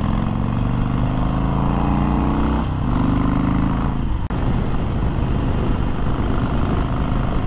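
Harley-Davidson Sportster 48's air-cooled V-twin pulling hard up through the gears, its pitch climbing and then resetting at a shift about two and a half seconds in. A second, briefer climb ends in a short gap at another shift a little past four seconds, and then it runs on steadily with wind rush over it.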